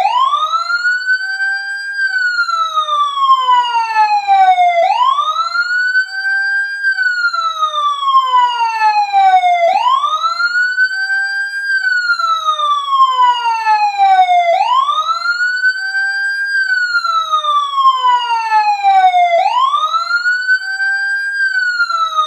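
Ringtone of a wailing siren: the pitch sweeps up over about two seconds, then slides slowly back down over about three, repeating about every five seconds.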